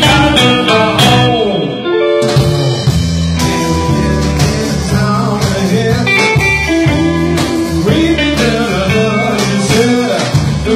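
Live blues band playing: a Stratocaster-style electric guitar plays a lead line with bent notes over bass guitar and drums.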